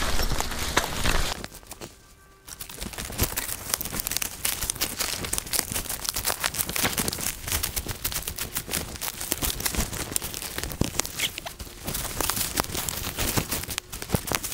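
Footsteps crunching through dry leaf litter and twigs, with branches and brush brushing against clothing, an irregular run of crackles and snaps. There is a short quiet pause about two seconds in.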